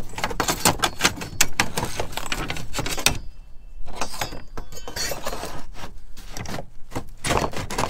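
Quick clicks, clinks and scrapes of hand work on a fibre cement slate roof: a steel slater's ripper being handled and put down, then the broken fibre cement slate being gripped and worked loose against the slates around it after its nails have been cut. There is a short lull about three seconds in.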